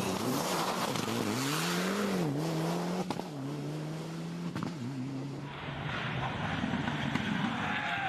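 Turbocharged four-cylinder engine of a Mitsubishi Lancer Evolution rally car driven hard on a stage. Its note rises and drops several times with gear changes and lifts off the throttle.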